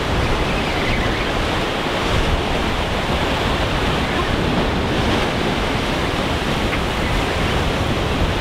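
Ocean surf breaking with wind blowing across the microphone: a steady rushing noise.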